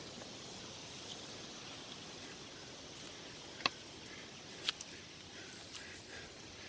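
Faint steady outdoor hiss, broken by a few sharp clicks: one a little past halfway and a quick pair about a second later.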